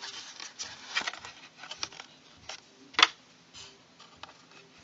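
Light handling of small plastic parts, scattered soft clicks and rustling, with sharper clicks about a second in and about three seconds in, as the clock's plastic stand is fitted.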